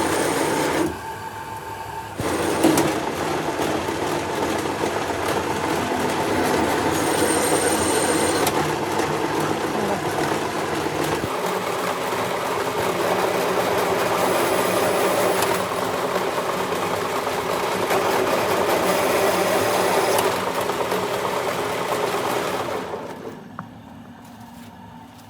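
A workshop machine running steadily, with its sound shifting about a second in and again about eleven seconds in, then dying away near the end.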